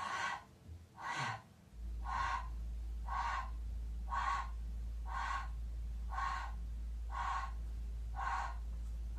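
A woman's short, sharp breaths out, about one a second, in time with small hip pulses held in a Pilates shoulder bridge. A steady low hum comes in about two seconds in.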